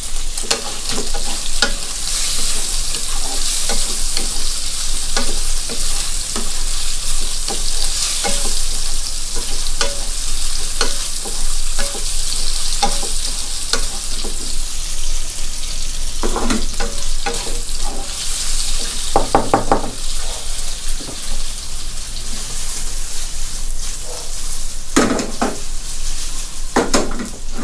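Pork and tofu sizzling steadily in a hot non-stick wok, stirred with a wooden spatula that clicks and scrapes against the pan. A few louder scrapes come in the second half.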